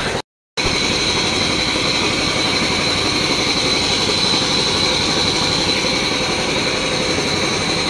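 Truck engine idling steadily, with a thin high whine held over it; the sound drops out completely for a moment just after the start.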